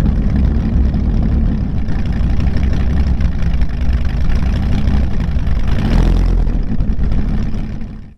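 The 8-litre pushrod V10 from a Dodge Viper, fitted to a home-built motorcycle, running while the bike is ridden along a road. It gets briefly louder about six seconds in and cuts off abruptly near the end.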